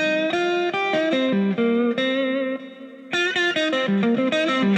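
Electric guitar playing a single-note melodic line through a Kemper Profiler into the Kemper Kab, with its JBL speaker voicing selected. A short gap comes about two and a half seconds in, then more notes with vibrato and bends.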